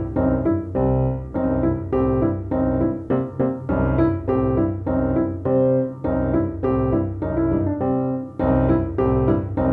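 Background music: a piano tune with notes struck one after another in a steady rhythm.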